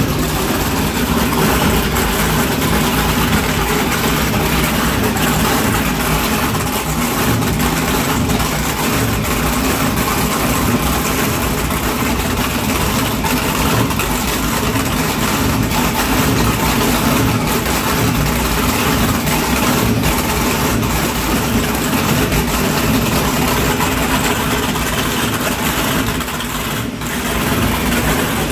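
High-performance racing catamaran's engines idling at the dock with a loud, steady rumble. The sound softens briefly near the end.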